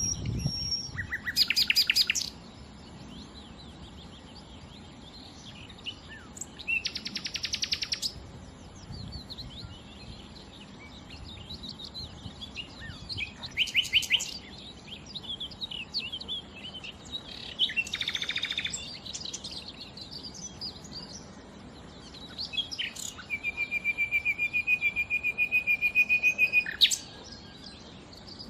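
Nightingale singing in separate phrases a few seconds apart, several of them fast runs of repeated notes, with scattered short notes in between. Near the end comes a long even trill of about four seconds.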